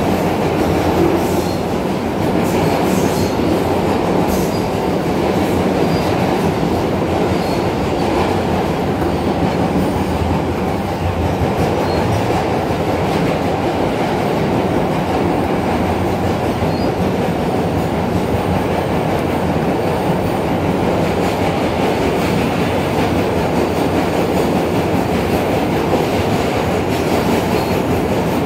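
Inside an R160 subway car running at speed between stations: a steady, loud rumble of steel wheels on rail and car-body noise, with a few faint clicks.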